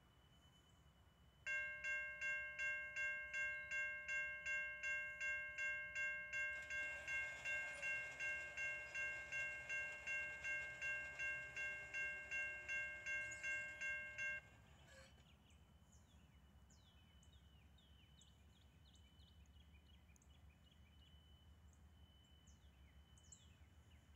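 Railroad crossing warning bell ringing in quick, even strikes, a little over two a second, starting about a second and a half in as the signal activates and the gates lower. It cuts off suddenly about fourteen seconds in, once the gates are down, leaving only faint high chirps.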